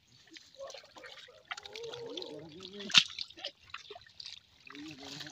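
Water dripping and splashing in irregular patters, with a sharp knock about three seconds in. Men's voices talk in the background.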